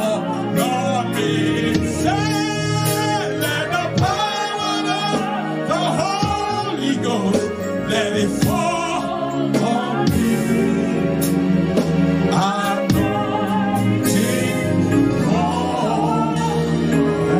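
Gospel worship singing: a voice holding long, wavering notes over a steady instrumental accompaniment.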